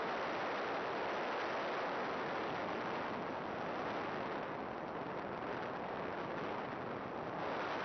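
Steady rushing hiss on the onboard audio of a first-person-view radio-control plane in flight, with no motor tone audible. It turns duller for about three seconds in the middle, then comes back.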